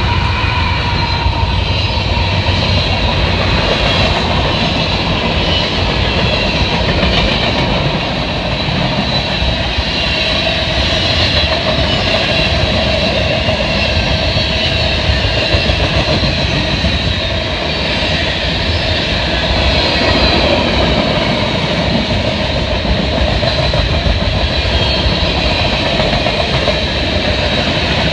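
Canadian National manifest freight train's cars rolling past close by: a loud, steady noise of steel wheels running on the rails.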